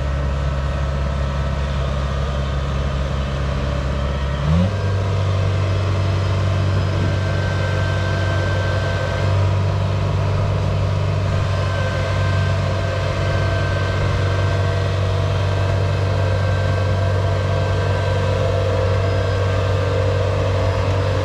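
Kubota DC70 combine harvester's diesel engine running steadily, revving up quickly about four and a half seconds in and then holding the higher speed as the crawler machine drives across the ramps.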